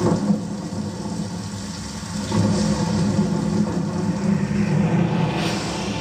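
Dolby Atmos demo trailer sound played back by a Sony HT-X8500 soundbar and picked up in the room: a heavy low rumble and drone with a sharp hit just after the start, swelling louder about two seconds in, and a short whoosh near the end.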